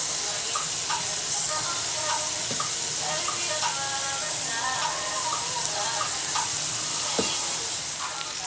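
Food frying in a hot pan: a steady, dense sizzle.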